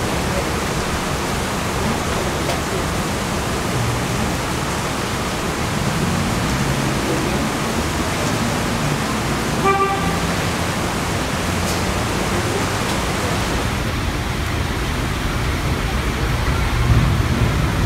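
Steady hiss of rain mixed with the rumble of an NYC elevated subway line, with one short horn toot from a subway train about ten seconds in. Near the end the rumble of an approaching train grows.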